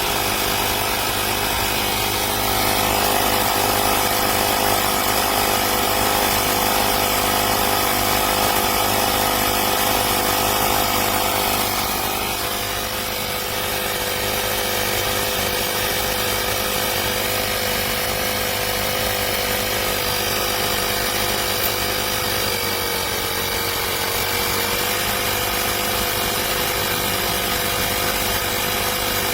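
Portable 12 V tyre inflator's electric piston compressor running steadily while pumping up a car tyre, its pitch shifting slightly a couple of times.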